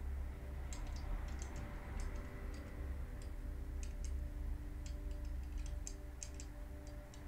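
Small irregular clicks of parts being handled and pressed into a painted die-cast model car body, over a low steady hum.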